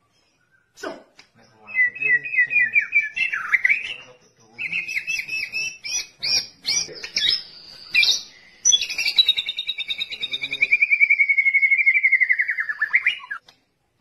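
White-rumped shama (murai batu) singing: a varied run of rapid trilled and whistled phrases, then a long fast trill that slides slowly down in pitch and ends in a quick upward flick.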